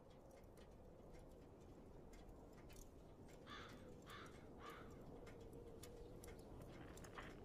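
Near silence with faint scattered ticks, and three short, faint falling chirps a little past halfway.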